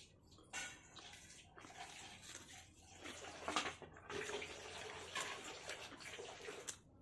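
Running water, continuing for several seconds after a brief lull at the start.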